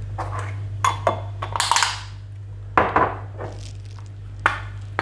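Kitchen handling clinks and clatters: a small plastic food storage box of vegetable broth powder being handled and its lid pressed shut, with a spoon clinking. It gives a handful of sharp clicks and knocks and a short rattling scrape, over a steady low hum.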